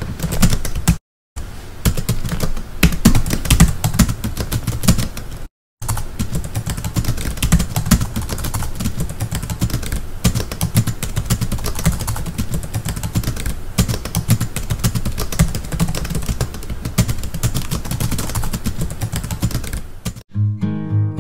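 Rapid typing clatter, with keys clicking fast and without pause. It cuts to silence twice, about a second in and again about five and a half seconds in, and stops shortly before the end, where music comes in.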